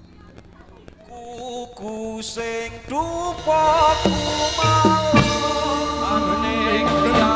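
Live Javanese kuda kepang dance music with drums and singing. It starts quiet, a melody comes in about a second in, and wavering voices and drums join from about three seconds in as the music builds louder.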